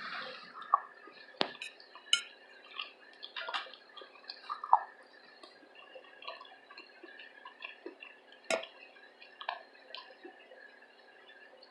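Close-miked eating: chewing with wet mouth clicks and smacks, and a few sharper clicks and clinks scattered irregularly throughout.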